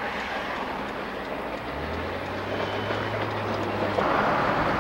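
Road and wind noise inside a moving car driving alongside a passing Southern Pacific freight train. A low hum comes in about two seconds in, and the noise gets louder near the end.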